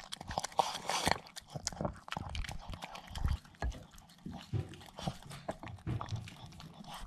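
Miniature pinscher eating hungrily from a bowl: irregular wet chewing, smacking and licking, with the tongue and snout clicking against the bowl as it cleans up the last of the food.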